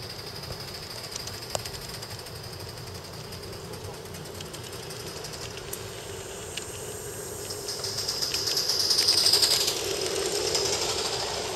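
Model of a Bavarian S 2/6 steam locomotive running on its track: a steady hiss with a fast fine patter and occasional ticks. It grows louder as the engine passes close by, about eight to ten seconds in, on a test run after repair.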